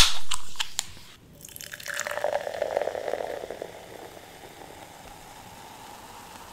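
A Coke opened with a sharp snap and a brief hiss, then poured into a glass for about two seconds, leaving a faint steady fizz of carbonation.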